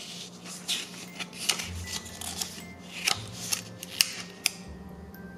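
Pages of a small paper booklet being turned by hand: paper rustling with a series of sharp flicks as the pages snap over, stopping after about four and a half seconds.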